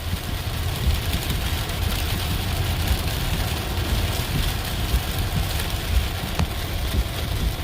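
Heavy rain falling on a Tesla electric car, heard from inside the cabin, over a steady low rumble of road and tyre noise.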